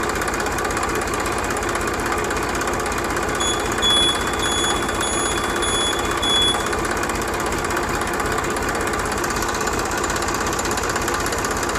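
Mini tractor's small engine running steadily with a knocking chatter. A series of about six short high beeps, about two a second, sounds over it from a few seconds in.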